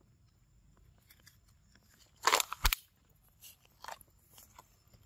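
A loud crunch of dry leaf litter and a sharp thump close together about two and a half seconds in, then a few fainter crackles and ticks.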